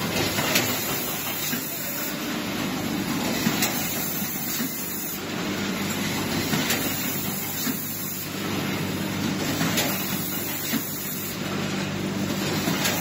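Rotary pre-made pouch (doypack) packing machine running steadily, a continuous mechanical hum and hiss with a sharp click roughly every three seconds.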